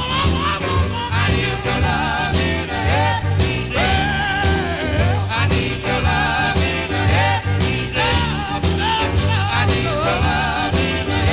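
A 1960s pop record playing: drums and bass keeping a steady beat under a wavering melodic lead line.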